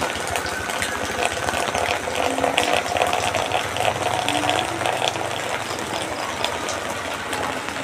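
Steady rushing water with scattered small clicks and taps.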